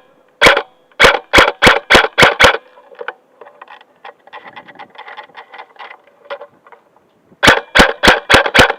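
Airsoft gun firing quick single shots, sharp snapping cracks about three a second. About seven come in the first couple of seconds, a few fainter shots follow, and near the end another fast string of loud shots begins.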